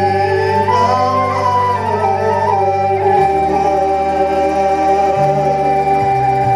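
Live Bulgarian folk-ensemble music: a sustained melody of long held notes over a steady bass line that shifts note about three seconds in and again near five seconds.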